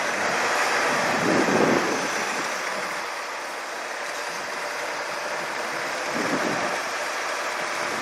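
Semi truck stuck in deep snow, its diesel engine running under a steady rushing noise that swells slightly twice.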